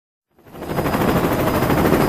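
Steady engine and propeller noise of a small aircraft, heard from on board, fading in from silence over the first second and then holding loud with a fast flutter.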